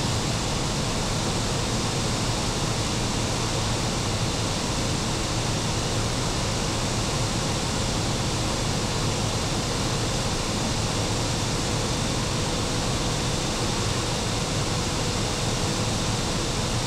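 Steady rushing noise of the cooling blowers and equipment in the machine room of a DRG class E 94 electric locomotive under way, with a faint steady hum running through it.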